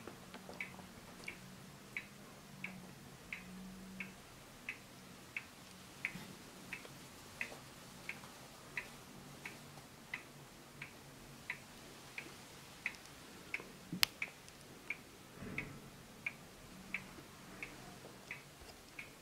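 Hermle wall clock's mechanical pendulum movement ticking steadily, about three ticks every two seconds. One sharper click a little past two-thirds of the way through.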